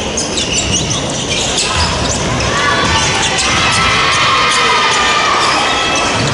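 Gymnasium din at a basketball free throw: voices calling out across the hall, rising about halfway through, with a basketball bouncing on the hardwood court.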